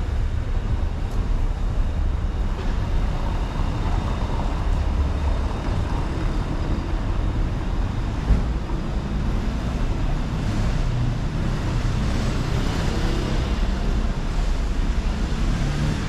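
Street traffic noise: a steady low rumble of passing cars with an even wash of city noise over it, and one brief knock about eight seconds in.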